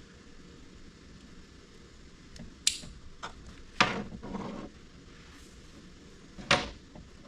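Three short clicks and clatters of small hard objects being handled during wire-harness work, over a steady low hiss; the second clatter trails into a brief rattle.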